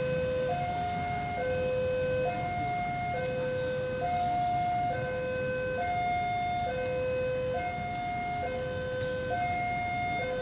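Electronic railway level-crossing warning alarm sounding a steady two-tone high-low pattern, each note held just under a second, over a low rumble.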